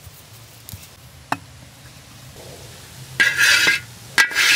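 A kadai of hot ghee mixture being lifted and poured onto pulled soan papdi sugar strands: a few faint knocks, then two short loud bursts of metal scraping against the pan, about three and four seconds in.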